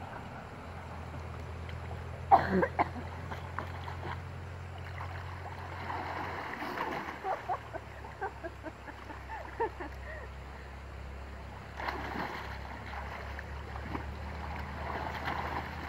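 Water sloshing and splashing as people swim and wade through a river, with many small scattered splashes and plops and a louder burst about two seconds in.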